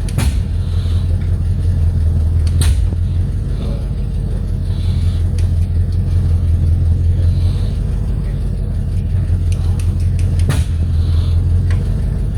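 An engine running steadily, a continuous low drone, with a couple of sharp clicks, one a few seconds in and one near the end.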